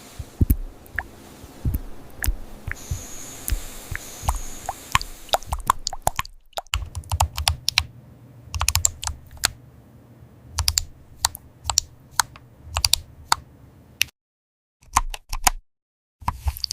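Typing on a computer keyboard: a steady stream of irregular key clicks, with a brief break about two-thirds of the way through.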